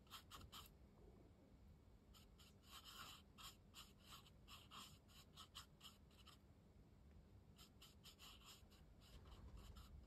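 Faint scratching of a paintbrush working watercolour paint onto rough cotton rag paper, in a few clusters of short strokes.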